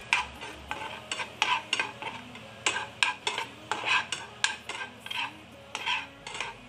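A steel spoon stirring and scraping onions and sauce around a nonstick frying pan, in quick, uneven strokes about twice a second.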